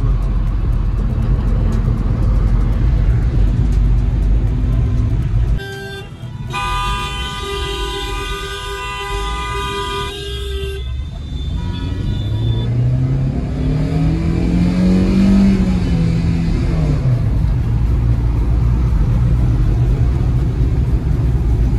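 Road noise inside a moving car in heavy traffic. A vehicle horn sounds for about four seconds, starting about six seconds in. Then an engine rises in pitch and falls back again.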